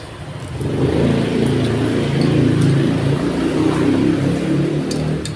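A motor vehicle's engine running close by, swelling about a second in and staying loud.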